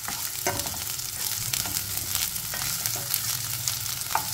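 Sliced onion sizzling in hot oil in a nonstick kadhai, stirred with a spatula that scrapes and taps against the pan several times.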